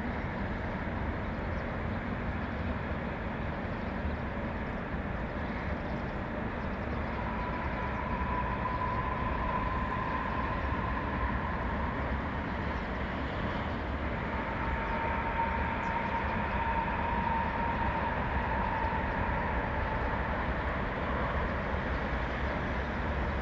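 Steady low rumble of distant vehicles, with a drawn-out high whine that comes in twice, several seconds each time, midway through.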